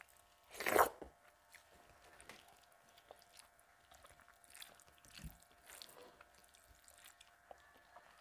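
Close-up eating sounds: one loud crunching bite just under a second in, then faint chewing and small soft noises of fingers mixing rice and dal on a brass plate.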